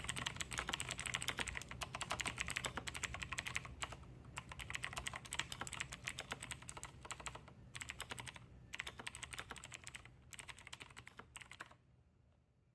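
Typing on a Razer BlackWidow Tournament Edition Chroma V2 mechanical keyboard with clicky Razer Green switches: a dense, rapid run of key clicks for about four seconds, then bursts of typing with short pauses, stopping about a second before the end.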